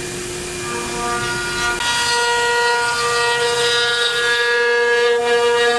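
5-axis CNC router's HITECO spindle running while carving a wooden figure: a steady whine of several tones that shifts pitch about two seconds in, with a hiss of cutting over it from then on.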